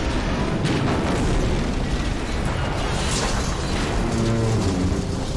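Film sound effects of a burning gunship crashing: explosions and a heavy, continuous rumble of impact and debris, over orchestral score. Low musical notes become clear about four seconds in.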